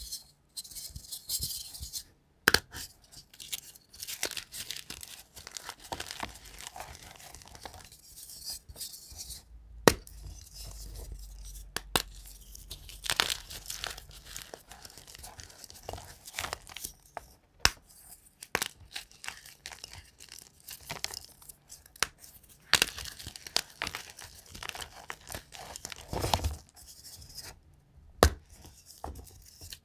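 Dyed gym chalk blocks being crushed and crumbled by hand: a dry, irregular crunching and crumbling into powder, with a few sharp snaps as pieces break apart.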